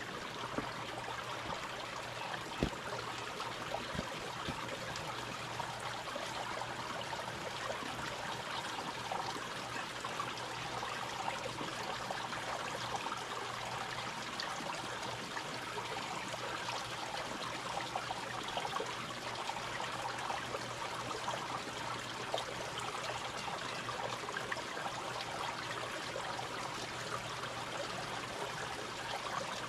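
Small creek running over rocks into a pool: a steady rush and trickle of water. A steady low hum lies beneath it, and there is a sharp knock about two and a half seconds in.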